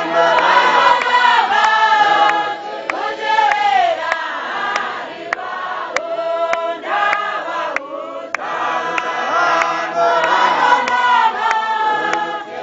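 A large congregation singing a hymn together in chorus, many voices on a slow melody.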